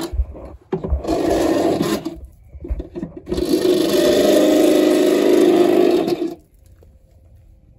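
Handheld electric drill running under the van in two bursts: a short one about a second in, then a longer steady run of about three seconds that stops suddenly, drilling holes for the heater mounting.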